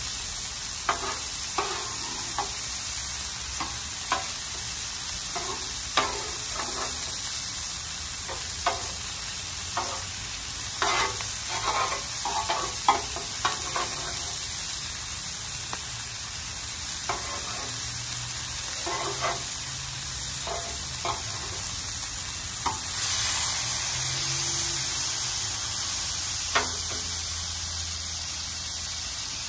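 Brisket and green beans sizzling on a hot Blackstone flat-top griddle, a steady hiss that swells briefly a little past two-thirds of the way through. Metal tongs clack and scrape against the steel cooktop again and again, mostly in the first half, with one more clack near the end.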